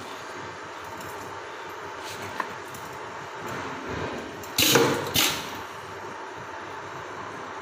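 Pneumatic leather belt stapling machine firing a staple: a sudden hissing burst of air about four and a half seconds in, then a second shorter one about half a second later, over a steady background hum.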